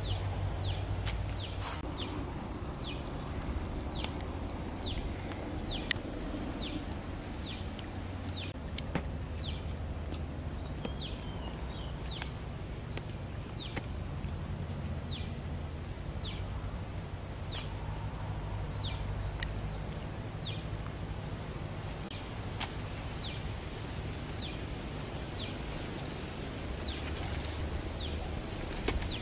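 A bird repeating a short, high, falling note a little more than once a second, over steady low outdoor background noise, with a few sharp clicks.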